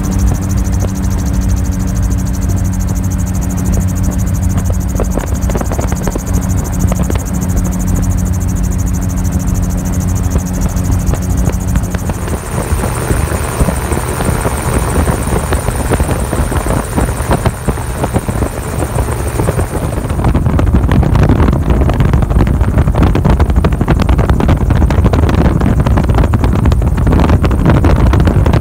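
Gyrocopter in flight, its engine and propeller giving a steady droning hum. The sound changes character about twelve seconds in and turns louder and rougher about twenty seconds in.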